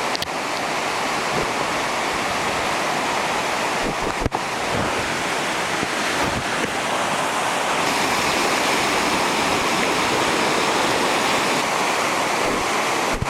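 Floodwater of a storm-swollen creek rushing past, a loud, steady, even wash of water noise.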